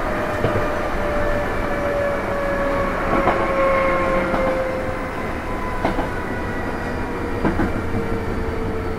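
Running sound inside a Sanyo 5000 series train's motor car: the Mitsubishi MB-3020 traction motors whine over a steady rumble of wheels on rail, the whine falling slowly in pitch as the train loses speed. A few light rail-joint clicks come through.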